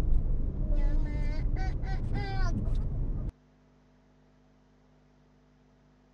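Low traffic rumble heard from inside a car, with a short wavering voice over it for about two seconds. About three seconds in, the sound cuts off abruptly to a faint steady hum.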